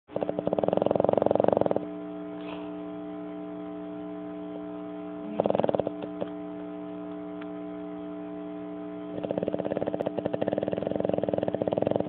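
A sleeping Boston terrier snoring in three rattling snores: a long one, a short one about five seconds in, and a long one near the end. A steady electrical hum runs underneath.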